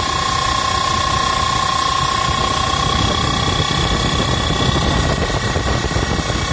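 Belt-driven blower running loud and steady, a high whine over heavy rushing noise. The seller asks whether the noise comes from a worn belt.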